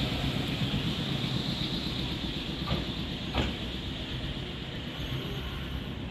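Nankai 7100-series electric train running away along the platform track, its rumble and wheel noise slowly fading, with two sharp clicks about three seconds in.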